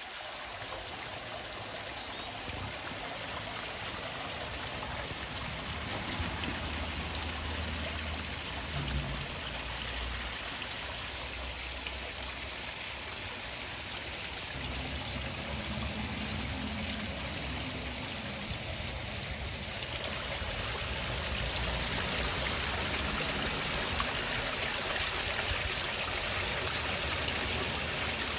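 Water pouring steadily out of a drain outfall and splashing onto the rocks and stream below, growing louder near the end.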